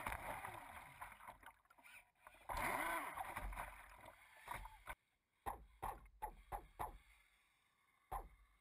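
Onboard sound from an RC racing catamaran running on the water: the muffled drive and rushing water, rising and falling in pitch. It fades out about five seconds in and is followed by a string of short knocks.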